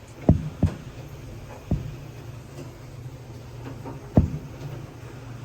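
Four dull thumps, the first two close together, over a low steady hum and a faint even hiss of rain.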